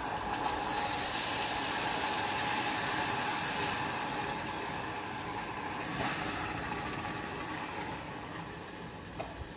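Hot water being poured into freshly cooked caramel, the caramel hissing and sizzling hard as it steams and bubbles up. The hiss is strongest in the first seconds and slowly eases off toward the end.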